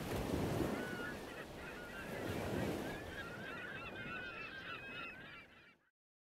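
A flock of birds honking and calling over a low rushing noise. The calls are many and overlapping, and everything fades out shortly before the end.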